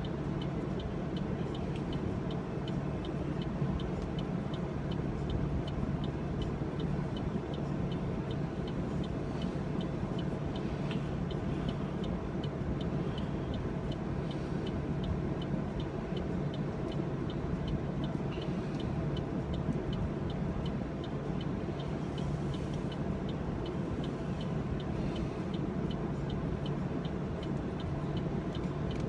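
Steady low hum inside a car, heard from the cabin, with a regular light ticking throughout.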